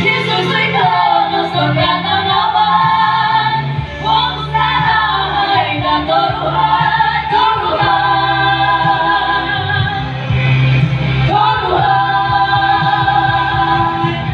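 Dusun gonding chant sung by a group: several voices hold long notes that slide up and down in pitch over a low steady drone, with fresh phrases starting about four, eight and eleven and a half seconds in.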